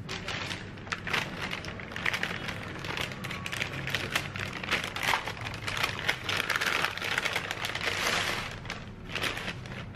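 A paper bakery bag holding a baguette crinkling and rustling as it is handled. The rustling eases briefly near the end, then comes back once more.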